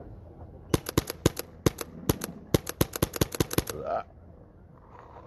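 Paintball marker firing a rapid string of about twenty sharp shots in quick bursts, which stops a little over halfway through.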